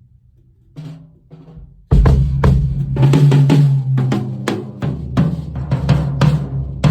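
Drum kit played for a sound check: a couple of light strokes, then from about two seconds in loud, dense snare and bass drum hits with cymbals.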